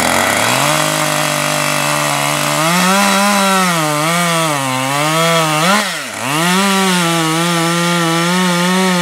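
Two-stroke petrol chainsaw at full throttle, cutting through a log. The engine note climbs as it opens up and wavers as the chain bites into the wood. About six seconds in it dips sharply and picks up again.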